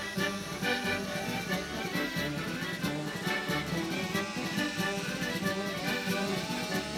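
Instrumental traditional folk music playing, with no singing.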